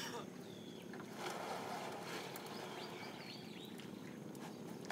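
Water splashing and dripping as a wet fishing net is hauled up out of the water over a boat's side, loudest a little over a second in, with birds chirping now and then.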